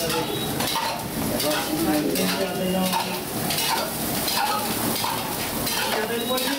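Aluminium idli plates and steamer pots clinking and clattering as the steamed idlis are unloaded and a stand is set into the steamer, over a steady hiss.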